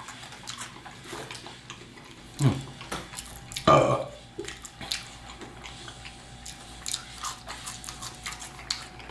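Close-up wet mouth sounds of eating: slurps and lip smacks from sipping gravy and eating a gravy-dipped french fry, with many small clicks and a couple of short louder mouth or voice sounds a few seconds in.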